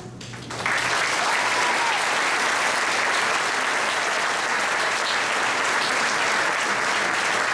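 Audience applauding, with clapping breaking out about a second in and holding steady.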